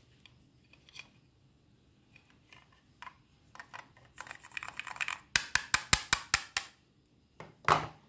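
Ridged hard-plastic toy pineapple halves rubbed against each other: scattered light scratches, then a dense rasping scrape, then a quick run of about eight sharp plastic clicks, and one louder clack near the end.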